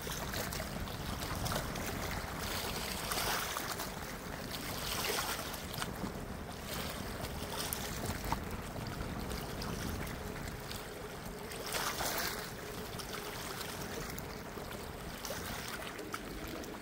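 Wind blowing across the microphone over choppy river water lapping at the bank, as a steady rushing noise that swells a few times.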